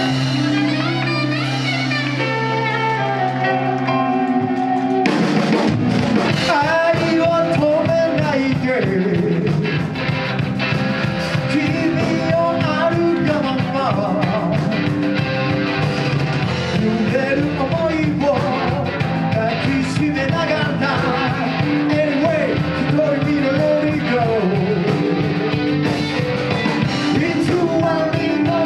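Live rock band playing: a held chord rings for about the first five seconds, then drums, guitar and a lead vocal come in together and carry on.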